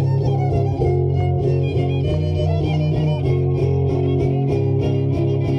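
Violin and guitar playing a carnival son, the fiddle carrying the melody over a steady strummed accompaniment.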